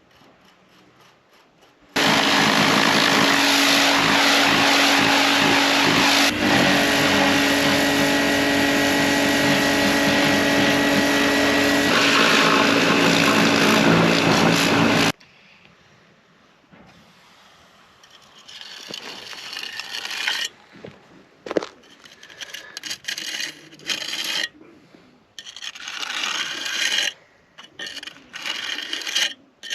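A machine runs loudly and steadily with a fixed hum for about thirteen seconds, starting and stopping abruptly. After a short lull come irregular scraping and rubbing strokes of a tool working concrete.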